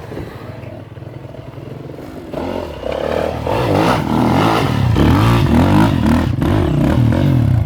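Trail motorcycle engine revving hard, getting much louder a couple of seconds in, with the revs rising and falling as the throttle is worked.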